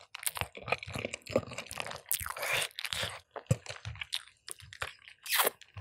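Close-miked crunching and chewing of a big mouthful of food, a run of irregular crisp crunches. It is mukbang-style eating, done deliberately for its sound.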